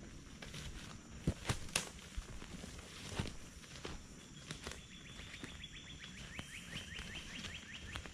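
Footsteps walking over the swamp floor, with a few sharp cracks about a second or two in. From about four seconds in, a rapid high trill of even ticks runs on until near the end.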